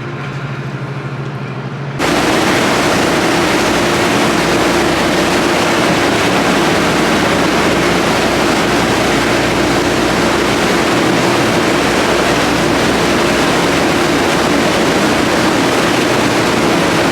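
Riverboat under way: a steady engine hum under loud rushing water and wind noise, which cuts in abruptly about two seconds in after a quieter hum.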